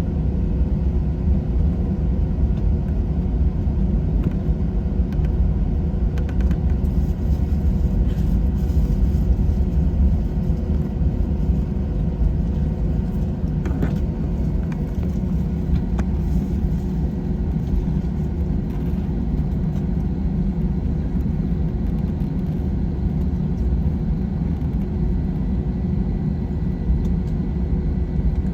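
Steady engine rumble heard inside the cabin of an Airbus A321 on the ground before takeoff, with a few faint steady tones above the rumble.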